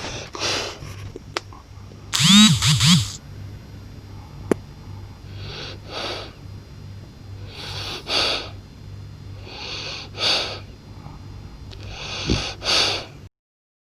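French bulldog snoring in its sleep, with a noisy breath about every two seconds and one louder, rattling snore about two seconds in. The sound cuts off shortly before the end.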